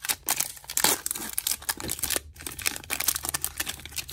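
Foil wrapper of a Pokémon trading card booster pack being torn open and crinkled by hand: a dense run of sharp crackles and rustles, busiest in the first second and thinning out near the end.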